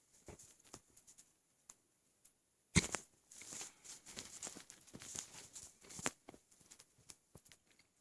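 A single hiccup about three seconds in, from a stomach bloated with about a gallon of milk. Faint scattered crackling and gurgling stomach noises follow it.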